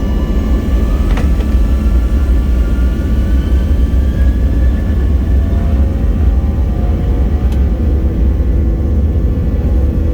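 Airplane engines at takeoff power: a loud, deep, continuous rumble, with engine whine tones rising in pitch over the first several seconds.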